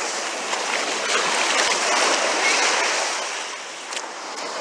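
Ocean surf breaking and washing up the sand at the water's edge: a rushing hiss of foam that swells about a second in, then eases as the swash runs out.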